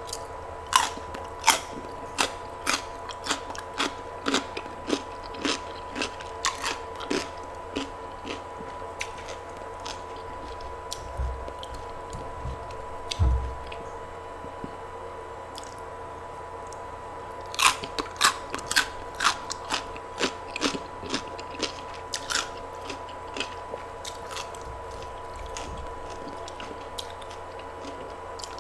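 A person biting and chewing crunchy food close to the microphone, in quick crisp crunches. The crunches come in two runs with a quieter pause between, over a faint steady hum.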